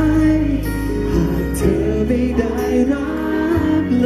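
A man singing a Thai song live into a handheld microphone over accompanying music with steady bass notes.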